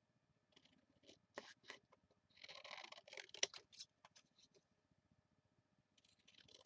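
Faint paper-crafting handling sounds: cardstock rustling and sliding, with a few small sharp clicks, the loudest about three and a half seconds in, as a paper tag is cut and trimmed.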